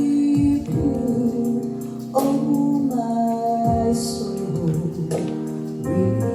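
Gospel choir singing a slow worship song with female voices prominent, over instrumental backing, held chords changing every second or two.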